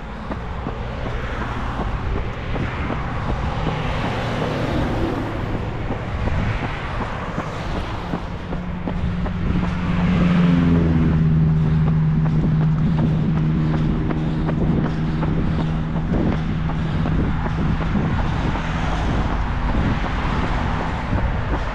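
Road traffic noise, with a vehicle engine's steady hum growing loud about ten seconds in and holding for several seconds, slowly dropping in pitch.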